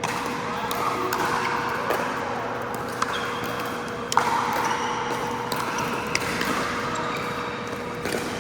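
Pickleball paddles hitting a plastic pickleball on an indoor court: a string of irregular sharp pops, the loudest about four seconds in. A steady hum runs underneath.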